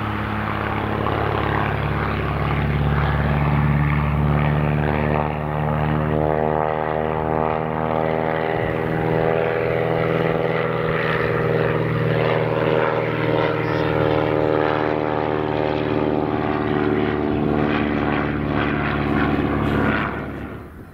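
Cessna O-1 Bird Dog's six-cylinder Continental piston engine and propeller running, a loud steady drone that drops away sharply near the end.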